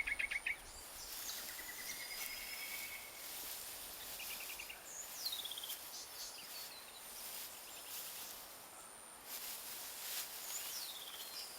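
Bush ambience: birds calling, with several short rapid trills and two whistled calls that fall steeply in pitch, over a steady high-pitched insect drone.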